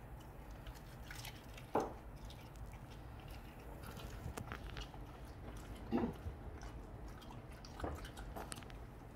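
A Jindo dog licking and chewing the last scraps of fish off a ceramic plate, with small wet clicks throughout. Three louder short knocks come about 2, 6 and 8 seconds in.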